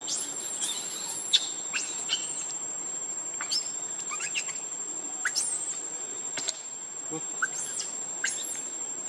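Steady high-pitched insect drone, with about a dozen short, sharp high chirps scattered through it.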